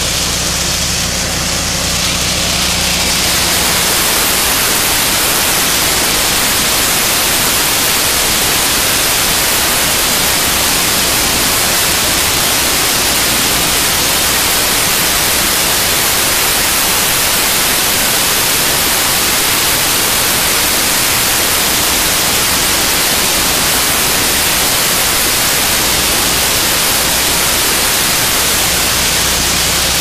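Mini combine harvester running close up while it harvests wheat. Its engine hum gives way after about three seconds to a loud, steady hiss.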